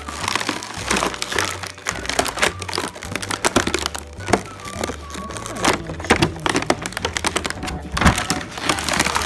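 Background music with a steady low bass line, over frequent sharp clicks and clatter of small plastic toy pieces being handled and knocking together.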